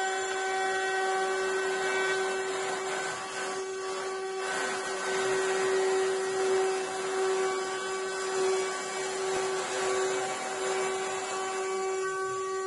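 Spindles of a mini CNC router with two 800 W spindles whining at a steady pitch while a router bit cuts through a wooden board, adding a rough cutting noise. Near the end the cutting noise drops away and only the steady spindle whine remains.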